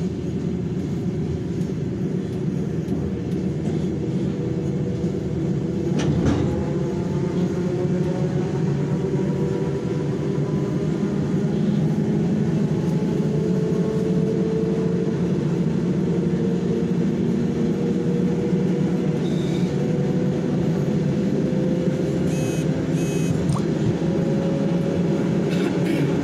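Inside a moving ER9M electric multiple unit: the steady rumble of the running train, with a whine that rises slowly in pitch as the train picks up speed. A single sharp knock comes about six seconds in.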